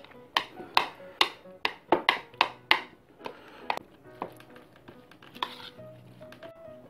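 Metal spoon knocking and scraping against a bowl as rice and seasoned bean sprouts are stirred together for bibimbap. Sharp knocks come about two or three a second for the first three seconds, then lighter and more scattered.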